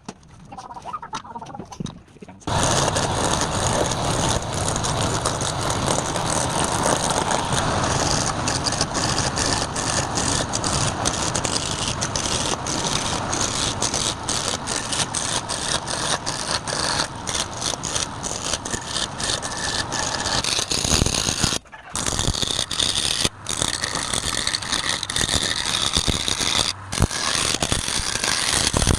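Lathe running while a turning tool cuts and scrapes the spinning coconut shell, with a dense scraping noise full of rapid clicks. It starts suddenly about two seconds in, and the cutting breaks off briefly three times near the end.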